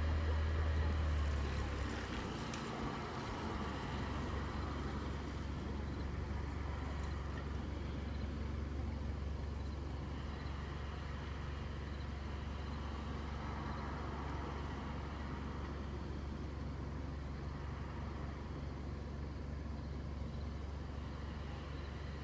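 Car driving, its engine and tyres heard from inside the cabin as a steady low rumble with road hiss. The rumble drops a little about two seconds in, then holds steady.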